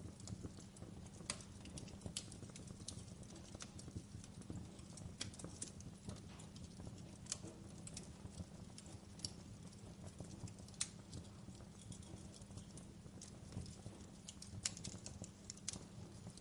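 Wood fire crackling in a fireplace: irregular sharp snaps and pops, some louder than others, over a steady low rumble of the flames.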